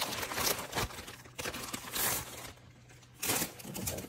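Packaging crinkling and rustling in irregular bursts as items are unpacked by hand.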